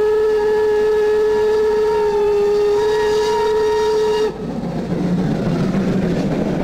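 Steam locomotive whistle sounding one long, steady blast that cuts off sharply about four seconds in. It is followed by the rumbling run of the steam train.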